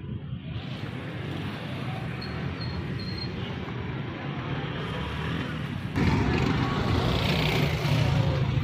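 Busy street traffic: engines of auto-rickshaws and motorcycles running close by, louder about six seconds in.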